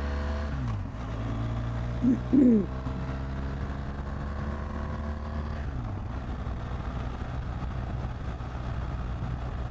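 BMW R1200 GS boxer-twin engine running on the move, its pitch shifting briefly about half a second in and again around six seconds in. About two seconds in, a short hooting sound of two rising-and-falling notes is the loudest thing.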